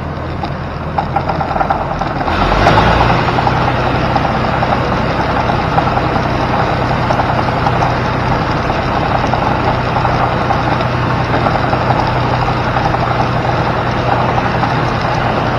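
New Holland 357 grinder-mixer running on a test run after its auger drive was fitted with a new chain and tensioner sprocket, a steady mechanical running sound with a constant low hum. It gets louder about two seconds in, then holds steady.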